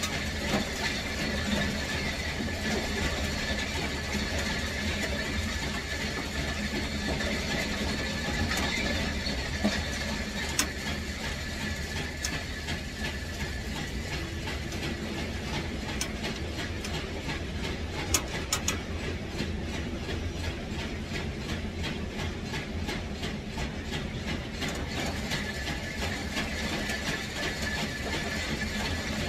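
Steady running noise of a motor or engine, with a continuous low hum, a faint steady high whine and a few sharp clicks in the second half.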